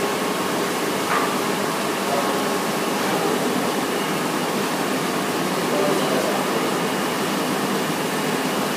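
UV curing conveyor machine running, its cooling fans giving a steady rushing noise with faint steady tones.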